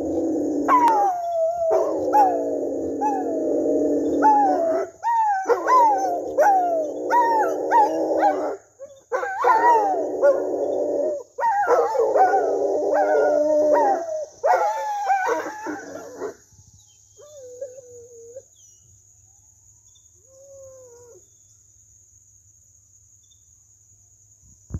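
Rottweilers howling in long, drawn-out calls a few seconds each with short breaks, their pitch wavering. The howling dies away about sixteen seconds in, leaving only two faint short whines.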